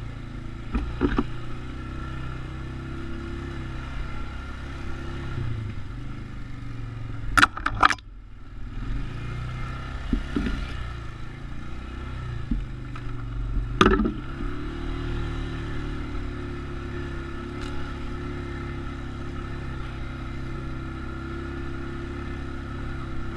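ATV engine running steadily at low trail speed, with sharp knocks and clatters as the machine bounces along the rough trail. The loudest knocks come as a pair about seven and a half seconds in and once more about fourteen seconds in.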